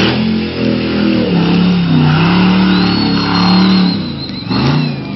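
Off-road Jeep special's Corvette 6.2-litre V8 revving hard under load, held at high revs with the pitch wavering up and down. It drops off about four seconds in, then is briefly revved again near the end.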